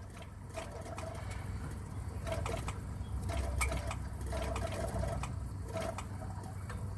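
On a 1999 Chevrolet Suburban, short bursts of a whir start and stop several times over a steady low hum, with light clicks: the fuel pump and other parts clicking and turning on as the oil-soaked crankshaft-sensor wiring is moved. The intermittent crank-sensor connection behind the cutting out and stalling is being worked.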